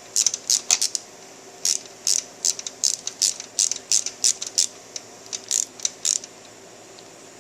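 Hand ratchet clicking in short repeated strokes as bolts are run down, about two bursts a second, stopping about six seconds in.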